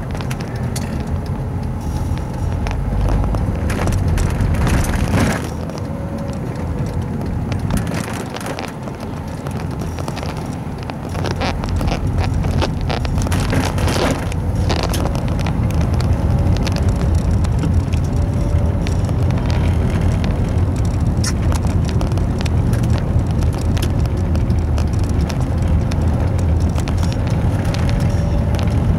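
Road and engine noise heard inside a moving taxi's cabin: a steady low rumble that grows louder about a third of the way in as the car picks up speed, with scattered short clicks and rattles.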